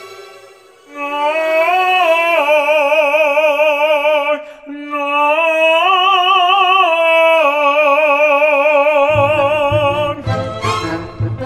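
Operatic solo voice singing long held notes with a wide, even vibrato, in two phrases split by a short break about four and a half seconds in. Near the end a low, pulsing instrumental accompaniment comes in.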